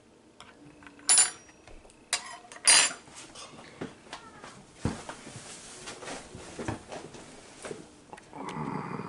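Metal spoon clinking and clattering: three sharp ringing clinks in the first three seconds, then scattered lighter knocks, and a muffled noisy burst near the end.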